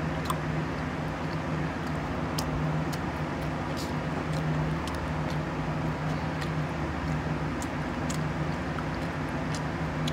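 Steady hum of an electric stand fan running, with faint sharp clicks scattered over it.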